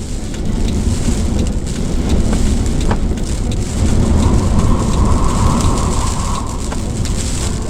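Gusting blizzard wind rumbling hard on the microphone, with a few light ticks and a faint whistle for a couple of seconds midway.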